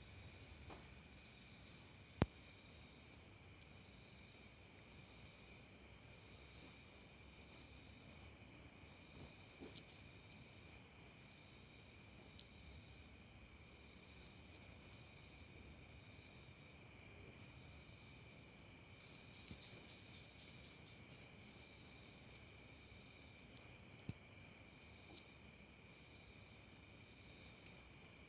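Crickets and other insects chirping: a steady high trill with irregular pulsing chirps over it, and one sharp click about two seconds in.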